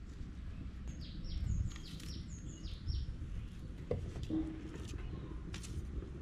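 Small birds chirping, a quick run of falling notes about a second in, over a steady low outdoor rumble, with a few sharp clicks later on.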